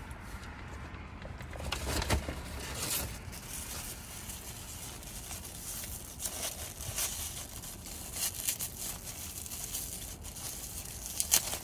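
Clear plastic wrapper crinkling and rustling as it is handled, in a run of scattered crackles, with one sharper crackle near the end.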